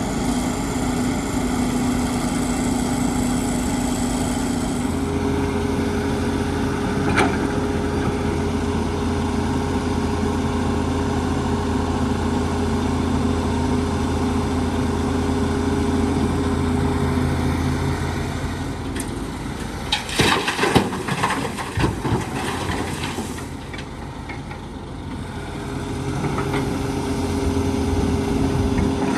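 Heavy diesel excavator engine running steadily, its note shifting up about five seconds in and easing off later. A short burst of clattering knocks comes about two-thirds of the way through, then the engine rises again near the end.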